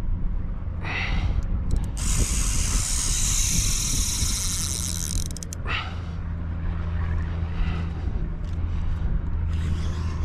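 Spinning reel's drag buzzing as a hooked barracuda pulls line, loudest from about two to five and a half seconds in, with shorter bursts around one and six seconds. Wind on the microphone rumbles low underneath.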